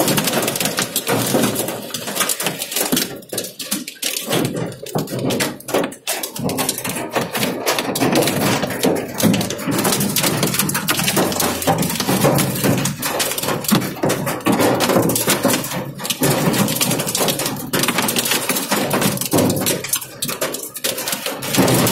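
Heavy rain drumming on the roof and windscreen of a car, heard from inside the cabin as a loud, dense patter of drop impacts that eases briefly a few seconds in.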